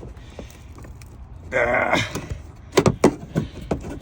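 About five sharp clicks and knocks in quick succession: seat belt hardware and interior trim being worked by hand past the rear vent tube inside a GMT800 Suburban.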